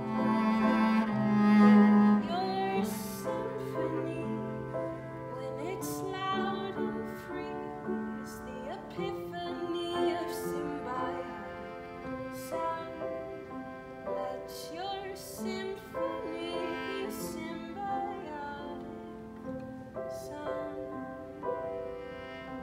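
Cello and upright piano playing a slow piece together: a bowed cello melody over piano chords, loudest on a low held cello note about two seconds in.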